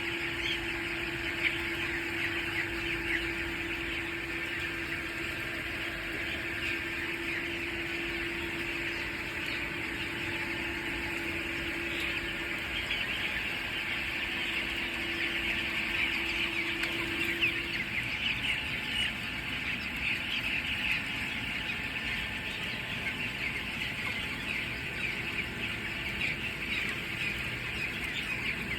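A large flock of young poultry chicks peeping continuously, many short high chirps overlapping. A steady low hum runs underneath and drops out about two-thirds of the way through.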